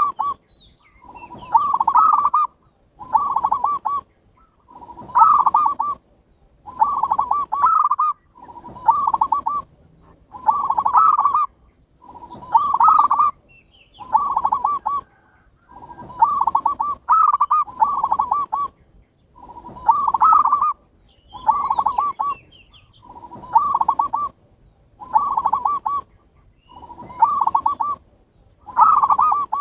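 Zebra dove (perkutut) cooing over and over, a rolling coo phrase about once every two seconds.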